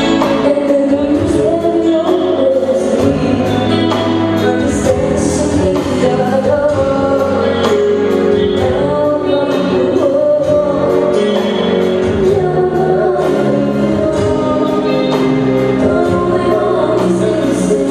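Live band playing a song, with singing over the band and a steady drum beat.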